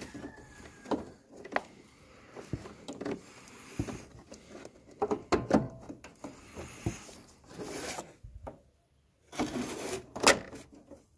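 Hands handling small metal parts and plastic sheeting: scattered clicks and light knocks, with short bursts of rustling in the second half.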